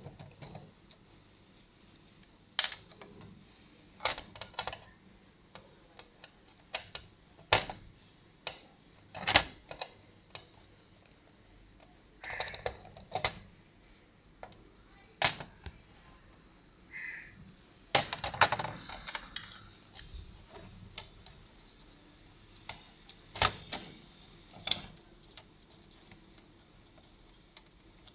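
Irregular sharp clicks and knocks of hand tools and a TV circuit board being handled on a bench while the power board is taken out.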